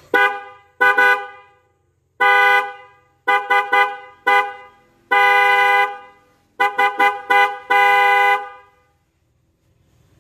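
Suzuki Carry's electric car horn honked about fourteen times in a loose rhythm: short taps, quick triple and quadruple bursts, and three longer blasts of under a second. Each honk is a steady two-pitch tone that cuts off cleanly.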